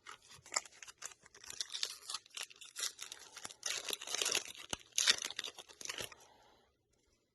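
Foil trading-card booster pack being torn open and crinkled, a dense crackling with sharp snaps that stops about six and a half seconds in.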